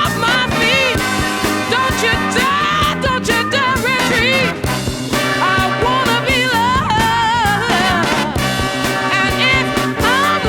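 Background music with a steady beat and a bending vocal or lead melody, in a ska/swing style.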